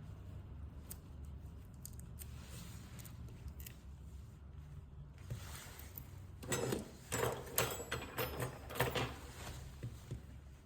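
Small clicks and scrapes of hand tools working on an iPhone XR during a battery replacement, with a cluster of louder scraping and rustling from about six and a half to nine seconds in, over a low steady hum.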